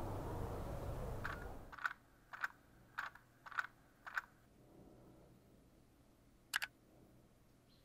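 A steady background noise cuts off just under two seconds in. Then come computer keyboard clicks: about six sharp key presses roughly half a second apart, and one more click a couple of seconds later.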